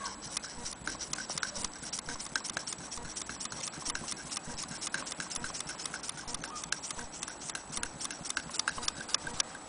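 Antique Willcox & Gibbs single-thread chain-stitch sewing machine stitching through heavy blue cloth: a steady, rapid clicking of the needle bar and stitch mechanism, several clicks a second.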